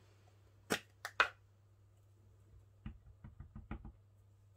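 Two sharp plastic clicks, then a quick run of about eight light taps as an ink pad is dabbed onto a clear acrylic-block rubber stamp to ink it.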